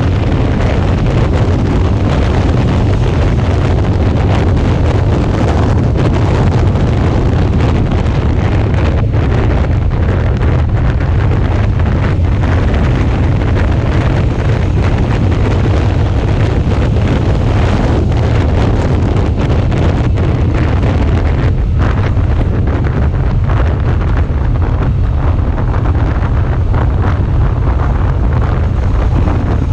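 Heavy wind rumble on an action camera's microphone on a Suzuki V-Strom 650 motorcycle under way, steady throughout, with the bike's running and road noise beneath it.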